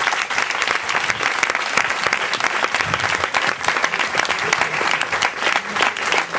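An audience applauding: sustained, dense clapping from many hands at the end of a talk.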